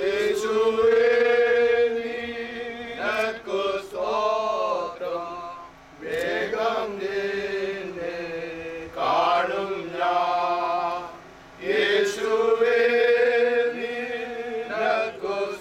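A group of men singing a slow Malayalam Christian hymn together, holding long notes in drawn-out phrases, with short breaks for breath about 6 and 11 seconds in.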